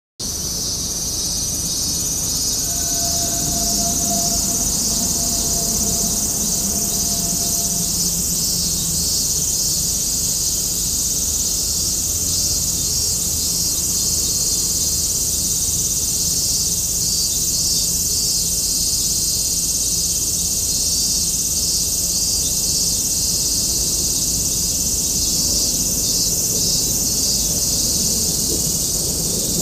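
A steady, high-pitched chorus of insects chirring, with a fast pulsing texture.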